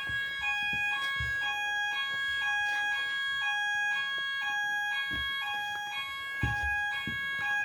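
Electronic fire alarm sounding a two-tone hi-lo warble: one tone steps between two pitches about once a second over a steady higher tone. It cuts off abruptly at the end.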